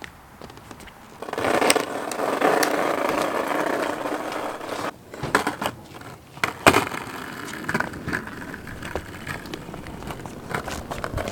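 Skateboard wheels rolling over a wooden ramp: a rough rolling noise for about three and a half seconds starting a second in, then several sharp clacks of the board knocking on the wood, and quieter rolling after.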